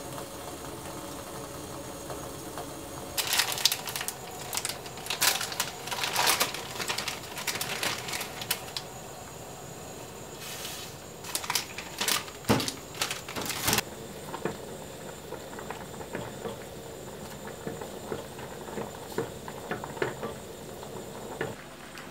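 Kitchen cooking sounds: a run of clicks, clinks and knocks of cookware and utensils, with a short hiss partway through, from about three seconds in until about fourteen seconds, then only occasional small clicks over a steady low hum.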